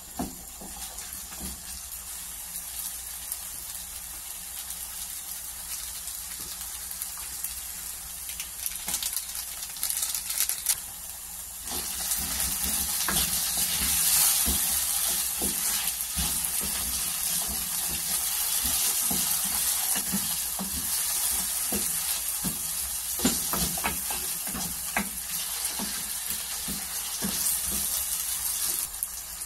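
Diced potatoes and onions sizzling in hot oil in a stainless steel pan, stirred with a wooden spatula that knocks and scrapes against the pan. The sizzle grows louder partway through.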